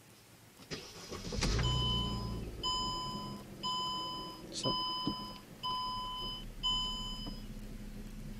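Mercedes-Benz E350 4Matic's 3.5-litre V6 starting about a second and a half in and settling into a steady idle, while the dashboard warning chime beeps six times, about once a second. A sharp click sounds near the middle.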